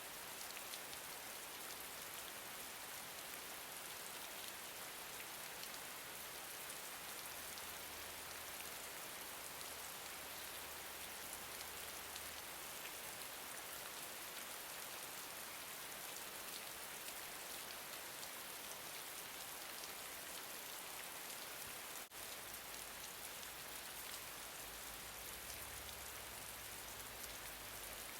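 Gentle rain falling steadily, a dense patter of raindrops over a continuous hiss, with one momentary dip about two-thirds of the way through.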